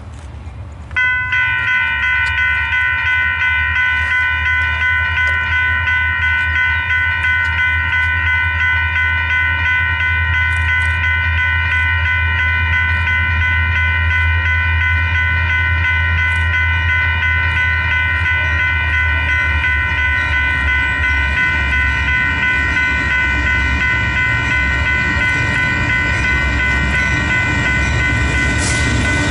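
Diesel freight locomotive's multi-chime air horn blown in one long unbroken chord, starting about a second in, over the low rumble of the locomotive's diesel engine.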